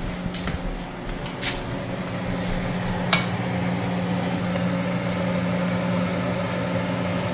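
Steady motor hum of a kitchen appliance, with a few sharp clicks in the first three seconds.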